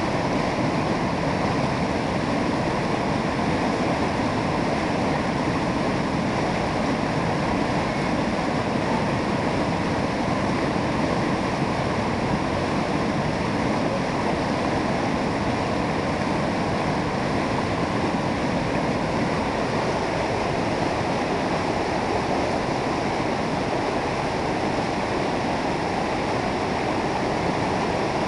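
Whitewater mountain river rushing over rocks in rapids: a loud, steady rush of water with no separate knocks or thuds.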